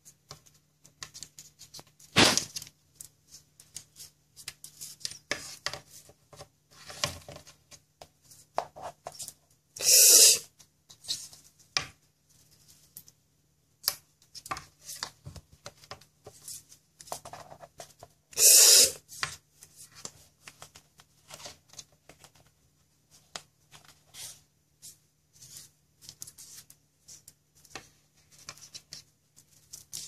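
White cockatoo gnawing on a wooden skirting board or door frame: a steady run of irregular small clicks and cracks of beak on wood, with a sharp crack about two seconds in and two louder harsh sounds, each about a second long, about ten and eighteen seconds in. A faint steady hum lies underneath.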